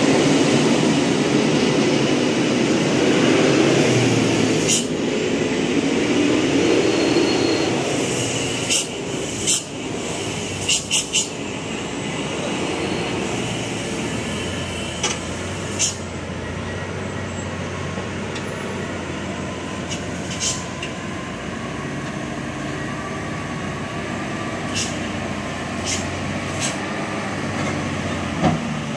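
Loaded Hino 500 dump truck's diesel engine running at low speed as it creeps down a narrow earth cut, loudest in the first few seconds, with a dozen or so sharp clicks and knocks scattered through the rest.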